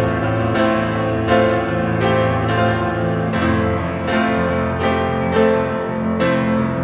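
Piano playing solo, full chords struck about once every three-quarters of a second and left to ring out.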